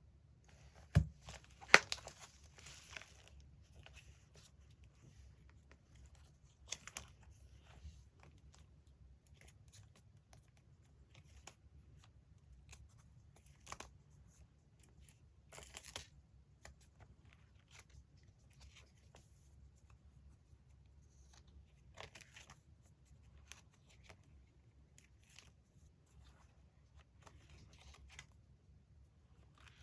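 Magazine paper being handled and cut: scattered rustles, snips and tearing of paper pages. Two sharp taps about one and two seconds in stand out.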